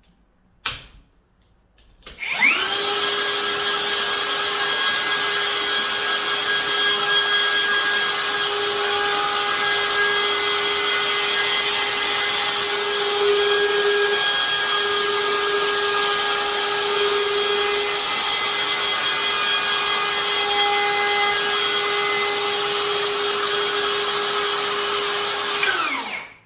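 Hikoki cordless router routing the lock face-plate rebate in a door edge through a lock jig. A sharp click comes about half a second in, then the motor spins up with a rising whine about two seconds in, runs at steady speed, and winds down just before the end.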